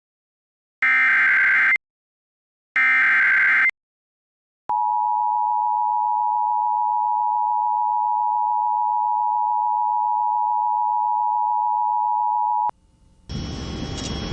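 Emergency Alert System tones on an FM radio broadcast. Two short warbling bursts of the digital SAME header data come first, then the steady two-tone attention signal sounds for about eight seconds and cuts off. Near the end, hissy broadcast audio comes in as the warning message starts.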